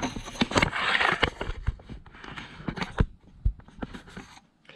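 Handling noise of a camera being moved and set in place: rubbing and scraping right at the microphone for the first second or so, then scattered clicks and knocks that die away near the end.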